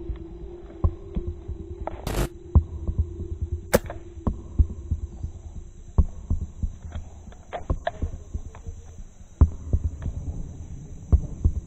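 Footsteps pushing through leafy undergrowth, picked up by a head-mounted action camera as irregular low thumps with leaf and twig crackle, over a steady low hum.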